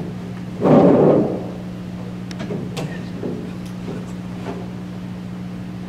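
A chair scraping across the floor as someone gets up, the loudest sound, about half a second in and lasting under a second. It is followed by scattered light knocks and footsteps over a steady low hum.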